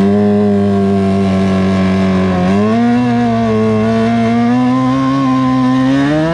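Modified garden tractor's engine running at high revs under load, pulling a weight sled. The pitch sags briefly about two and a half seconds in, recovers, and climbs again near the end.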